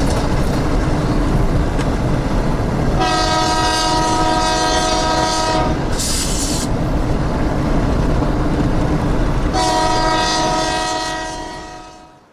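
Diesel freight train passing with a steady low rumble of locomotives and rolling cars, its multi-chime air horn sounding two long blasts. Between the blasts there is a short high hiss, and the whole sound fades out near the end.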